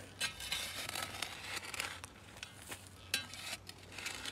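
Digging tool scraping and breaking up hard, dry soil, the loosened dirt crumbling and rustling in irregular bursts, with a sharp click about three seconds in.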